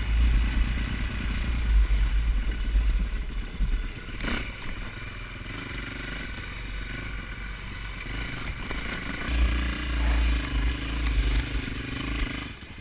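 Dirt bike engine running as the bike rides over a rough trail, with clatter from the bike and a sharp knock about four seconds in. Near the end the engine settles to a steady note, then drops off sharply.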